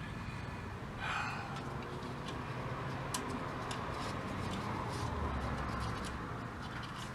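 Faint light clicks and scraping from hands working on a tube radio chassis, over a steady hiss.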